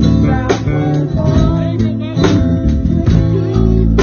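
Live band playing a country song: electric guitar and bass over a drum kit, with sharp drum hits, and a voice singing along at the microphone.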